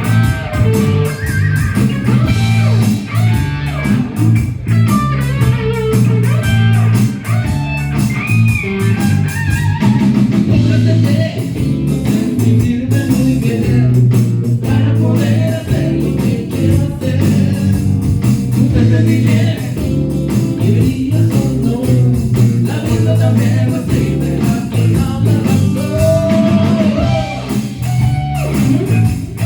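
A band playing blues-rock: electric guitar over a steady bass line, continuous throughout.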